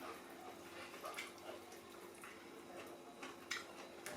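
Quiet eating sounds: a few faint scattered clicks and wet smacks from people chewing and eating sadza and meat, over a low steady room hum.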